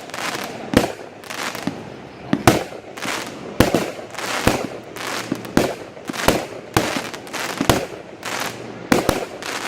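Consumer aerial fireworks going off in steady succession: loud sharp bangs about one a second, some in quick pairs, with crackling between them.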